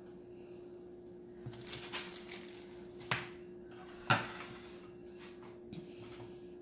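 A metal fork scraping and pushing soft scrambled egg onto a tortilla on a ceramic plate, then two sharp clinks of the fork against the plate about a second apart, the second louder.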